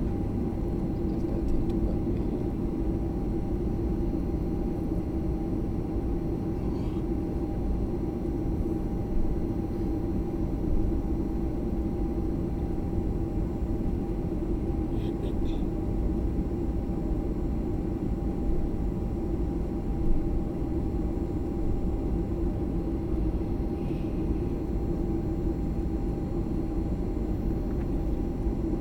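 Steady jet airliner cabin noise: the even drone of the engines and airflow, with a steady hum running under it and a few faint ticks.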